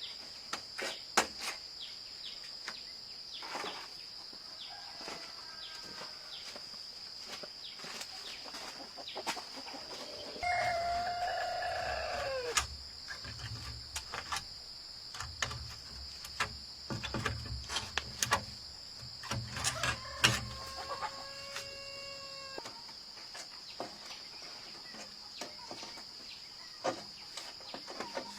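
Rooster crowing twice, each crow about two seconds long and falling in pitch at the end, over a steady high insect drone, with scattered sharp knocks and clicks and a low rumble through the middle.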